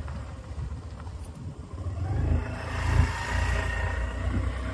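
A moving road vehicle's engine and road noise: a steady low rumble, with a louder hiss and faint whine building from about two seconds in and peaking about a second later.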